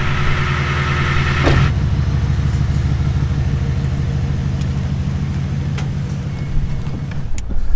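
Bass boat outboard motor idling steadily. Its note shifts about a second and a half in and drops away near the end.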